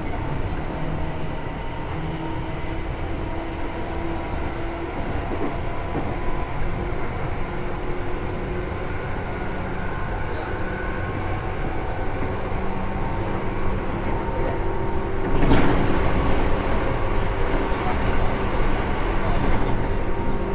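Tobu 9000 series electric train running, heard inside the car: a steady rumble with several steady whining tones from its traction equipment, and a short surge of louder noise about fifteen seconds in.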